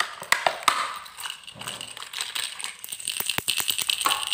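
A hard plastic lure pack, holding a DUO Realis pencil lure, being handled and pried open: a run of crackling and rustling with many sharp clicks, busiest about three to four seconds in.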